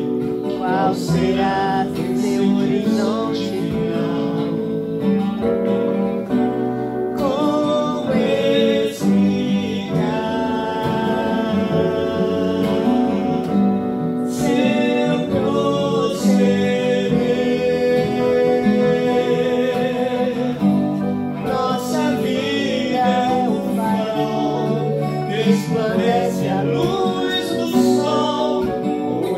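Live acoustic guitar and Yamaha MM8 keyboard accompanying singing of a Brazilian gospel song.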